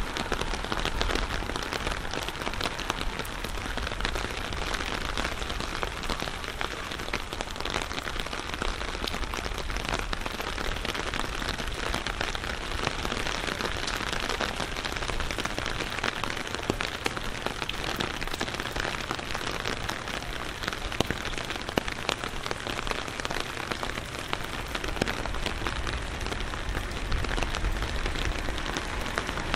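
Steady rain falling, with many small drop ticks scattered through it.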